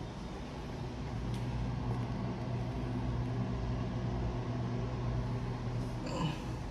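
Steady low mechanical hum with a faint rumble. Near the end comes a short squeak that falls in pitch.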